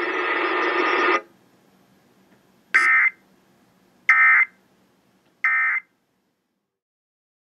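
Emergency Alert System end-of-message signal over weather radio: three short, identical buzzy data bursts about 1.4 s apart, marking the end of the alert. Before them, a steady radio hiss cuts off about a second in.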